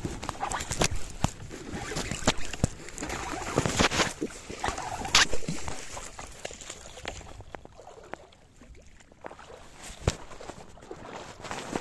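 Handling noise from a baitcasting rod and reel: irregular clicks and knocks over rustling, busiest for the first six seconds and then quieter.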